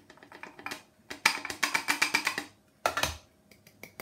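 Quick taps and clinks of a plastic tub against a glass measuring jug as flour is knocked into it, with a thump about three seconds in.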